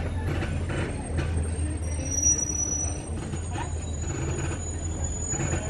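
Tourist road train running slowly, heard from aboard a rear carriage: a steady low engine drone with the noise of its wheels rolling over stone paving.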